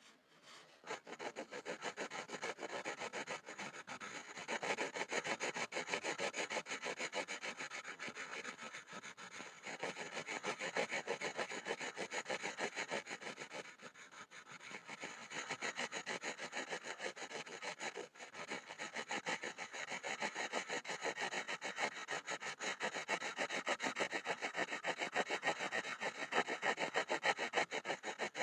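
Pencil scribbling on a board in fast, continuous back-and-forth scratching strokes. The scribbling starts about a second in and eases briefly around the middle.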